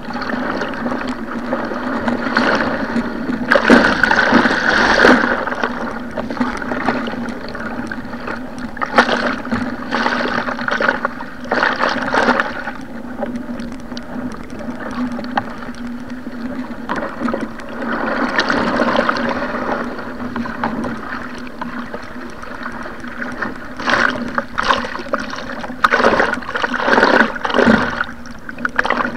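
Sea water rushing and splashing against a surfski as it runs with wind waves, in irregular surges a second or two long, over a steady low hum.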